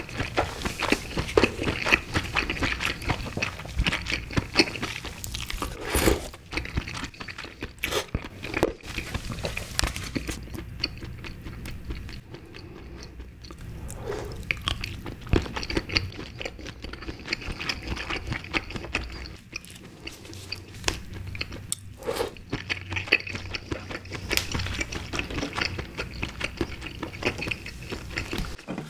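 A person chewing and biting red king crab leg meat close to the microphone: a dense run of small mouth clicks, with a few louder ones about six seconds in and again about twenty-two seconds in.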